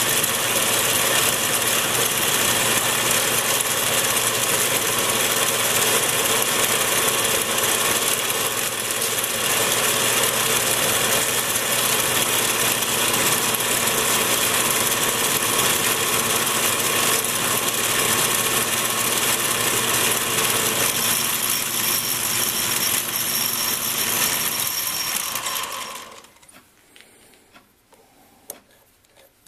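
Atlas 618 bench lathe running, a steady mechanical whir of motor, belts and gears with the chuck spinning, which winds down and stops near the end. After it, near quiet with a few light clicks.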